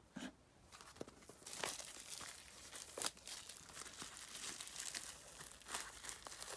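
Clear plastic shrink wrap being torn and peeled off a photo-book CD album: irregular crinkling with sharp crackles now and then.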